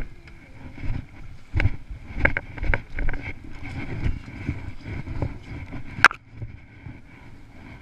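Rumbling wind and handling noise on a jostled camera microphone, with a run of short knocks and bumps, the sharpest one about six seconds in.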